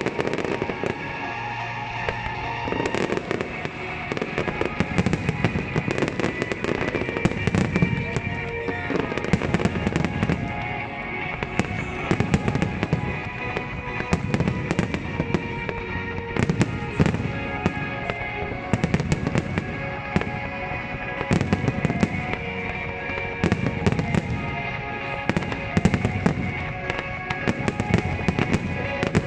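Aerial fireworks shells bursting and crackling, many in quick succession and in dense clusters, over the music soundtrack that accompanies the display.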